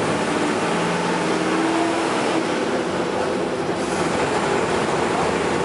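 Steady running noise of a vehicle, even throughout, with a few faint steady tones in it.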